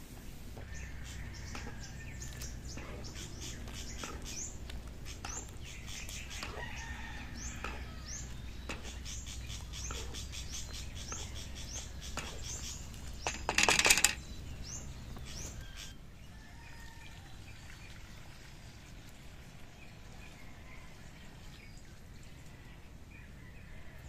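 Coconut milk simmering in a steel wok over a wood fire, with many small crackles and pops over a low rumble. A little past halfway a metal ladle scrapes loudly against the wok, the loudest sound. After that it quietens to faint bird chirps.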